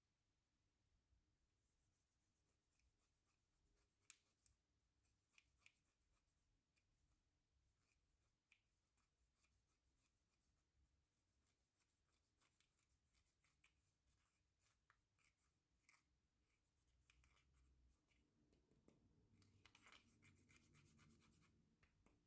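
Very faint sticky clicks and crackles of slime being squeezed and worked by hand, coming thicker and a little louder near the end.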